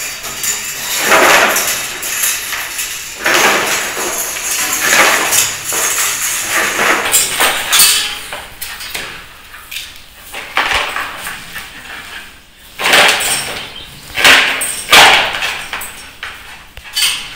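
Electrical wires being pulled by hand through ceiling conduit: irregular bursts of scraping and rustling, with the loudest ones a little past the middle and near the end.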